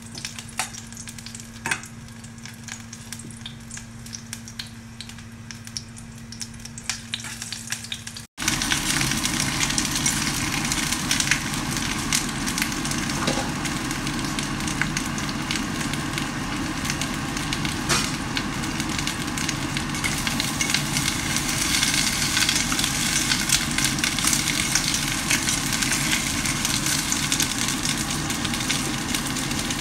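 Hot oil sizzling in a pot as a slice of ginger and then pieces of fish fry in it. It starts quieter over a low steady hum, then jumps much louder at a cut about eight seconds in and stays at that level.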